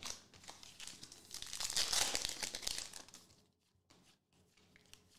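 Foil wrapper of a 2021 Panini Contenders Football card pack crinkling and tearing as the pack is ripped open and the cards pulled out, mostly in the first three seconds.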